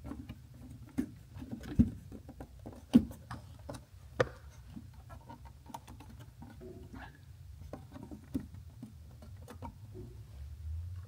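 Scattered small clicks and taps as an LED landing light and its retaining ring are handled and seated by hand in an aircraft cowling. The sharpest taps come about two, three and four seconds in, over a low steady hum.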